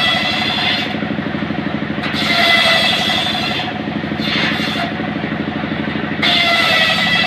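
Engine-driven homemade circular saw bench ripping trembesi (rain tree) timber. A steady engine note runs throughout, and the blade's high whine comes and goes several times as the board is worked through the cut.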